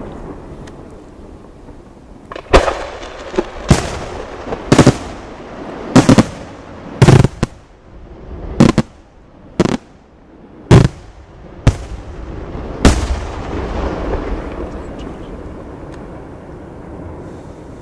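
Aerial firework shells bursting in a run of about ten loud bangs, roughly one a second. After the last bang comes a rumble that swells and then fades.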